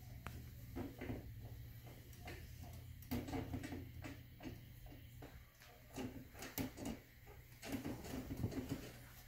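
Hands pushing and rubbing along a person's clothed back: irregular fabric rustling and scuffing with short clicks, over a low steady hum.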